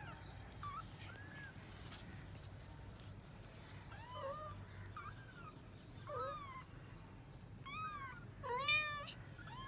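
Young kittens mewing: a string of short, high-pitched mews that come faster and louder in the last few seconds.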